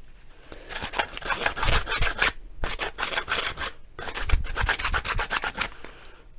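Hand file rasping along the edge of a cut 20-gauge sheet-steel patch panel in quick strokes, in three bouts with short pauses between: dressing and deburring the freshly cut edge.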